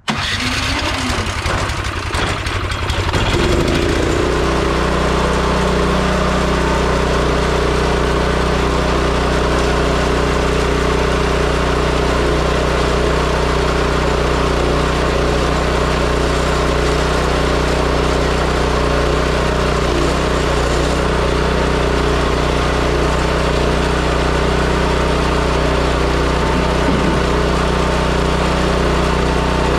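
Toro 721 snowblower's single-cylinder four-stroke engine catching after a no-start. It runs unevenly for the first few seconds, then settles into a steady idle.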